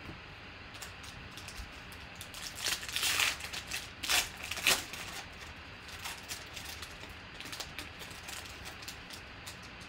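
Foil wrapper of a Panini Select football card pack crinkling and tearing as it is ripped open by hand, loudest about three seconds in with two sharp rips just after. Lighter crackles and ticks follow as the cards are slid out of the wrapper.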